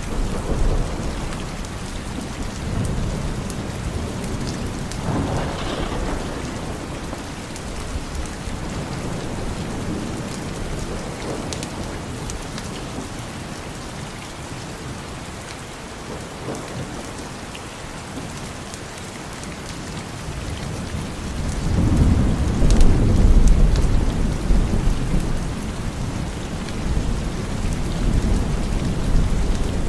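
Steady rain falling, with rolling thunder: a low rumble swells briefly early on, and a bigger, longer rumble builds up about two-thirds of the way through and then fades.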